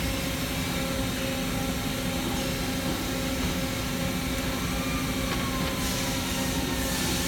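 CNC horizontal boring mill running: a steady mechanical hum with constant tones, a tone gliding slowly downward about five seconds in, and a hiss near the end.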